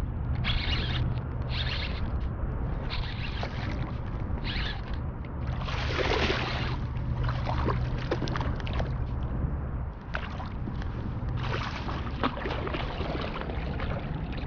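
A hooked bass being fought in to the bank: the baitcasting reel cranks in short rasping bursts about a second apart, then the fish splashes and thrashes at the surface in the shallows, loudest about six seconds in and again near the end. A steady low rumble runs underneath.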